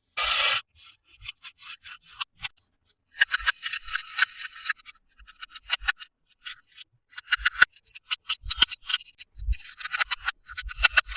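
Hands unboxing a toy, rubbing and crinkling its packaging in short scratchy bursts. There is a burst just after the start, a longer one about three to five seconds in and another near ten seconds, with scattered light clicks and taps between them.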